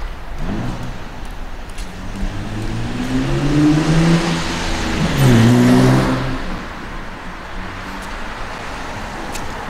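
A car accelerating past: its engine pitch climbs over several seconds, swelling with tyre noise to its loudest about four to six seconds in, then fades away.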